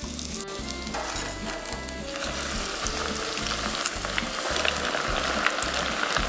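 Breaded suppli deep-frying in a small pot of hot vegetable oil, sizzling and crackling. The sizzle thickens and grows louder about two seconds in, as fresh balls bubble hard in the oil.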